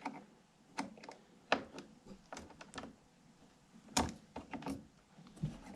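Irregular clicks and taps of a screwdriver and metal parts as loose wire connections on a furnace are being tightened, with the sharpest knock about four seconds in.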